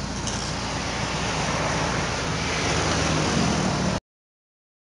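Road and engine noise of a moving vehicle heard from on board: a steady rushing of tyres and wind over a low engine hum. It stops abruptly about four seconds in.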